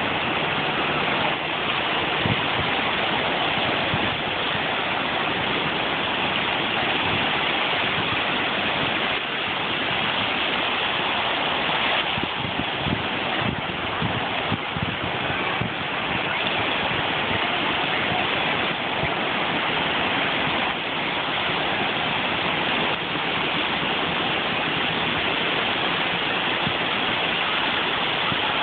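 Ocean surf breaking and washing through the shallows: a steady rushing of water.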